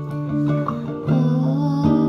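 Song playing, led by guitar chords, with a woman singing into a microphone; her voice comes in about a second in over the guitar.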